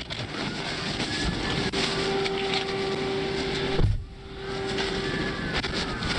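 Police cruiser dashcam audio: a steady rushing noise with a steady hum, and a siren wailing faintly, rising and falling. The sound drops out briefly about four seconds in.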